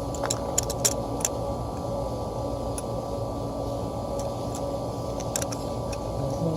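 Steady mechanical hum with a scattering of short, light clicks and taps, several in the first second or so and a few more later, from metal parts being handled while a replacement exhaust fan motor is mounted.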